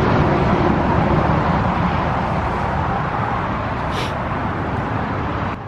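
Steady drone of interstate traffic passing close by, a continuous rush of tyres and engines.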